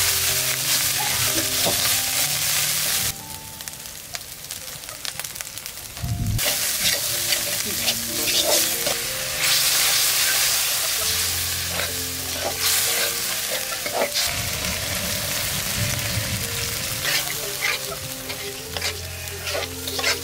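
A pot of chicken curry sizzling in hot oil while it is stirred, with a utensil scraping and knocking against the pot. The sizzle falls away for a few seconds near the start, then comes back.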